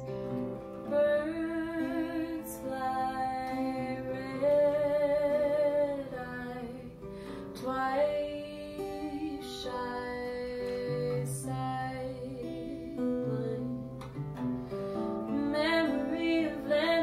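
A woman singing held, wavering notes over a strummed acoustic guitar.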